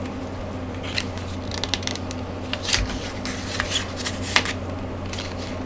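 Pages of a glossy paper product booklet being turned and handled: a series of short paper rustles and flicks, with the busiest stretch in the middle, over a steady low hum.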